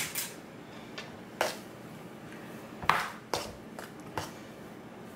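Large metal spoon clinking against a stainless steel mixing bowl while stirring mashed potatoes: about five sharp clinks, most of them in the second half.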